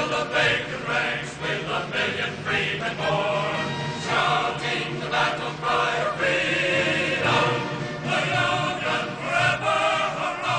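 A choir singing a song as background music.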